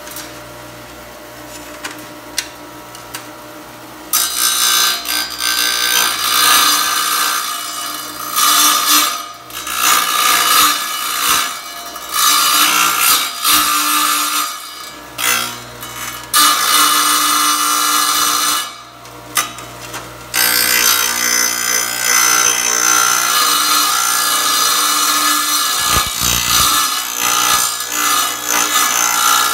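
Small tabletop wet tile saw: the motor hums with the blade spinning free for the first four seconds, then the blade grinds into the edge of a tile in a series of short passes, nibbling out a curved cutout, and cuts without a break over the last third.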